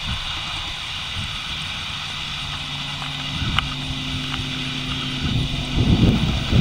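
Outdoor ambience dominated by wind buffeting the microphone, with the steady hum of a distant motor vehicle engine through the middle few seconds. The wind gusts harder near the end.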